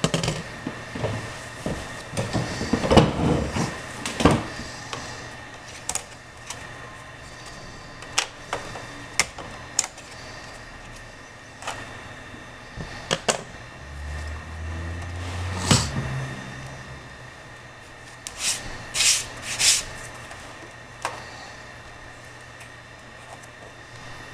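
Irregular clicks, taps and knocks of hands working on a Dell Inspiron 1750 laptop's plastic base and handling the machine, with a few louder clatters, over a steady low hum.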